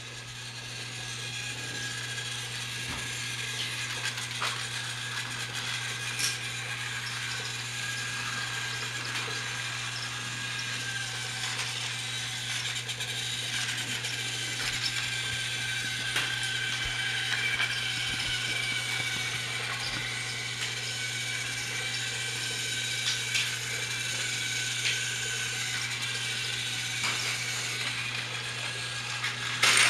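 Small battery-powered toy train motors and gearboxes whirring steadily as motorized Thomas & Friends trains run on plastic track, with occasional sharp clicks.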